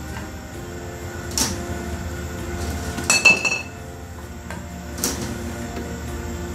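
Dishes and utensils being handled: a sharp knock about a second and a half in, then a quick run of clinks a little after three seconds, one of them ringing. Another knock follows about five seconds in, over a steady low background hum.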